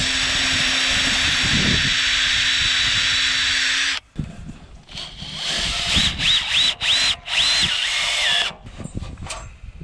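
Cordless drill running steadily for about four seconds, boring through the galvanized steel plate of a solar-panel mounting bracket. It stops abruptly, and after a short pause the drill-driver's motor whines up and down in several short spurts as a screw is driven.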